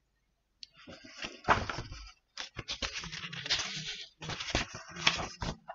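Paper pages of a picture book rustling and scraping as the book is handled and its pages turned, an irregular run of crackles and short scrapes starting about half a second in.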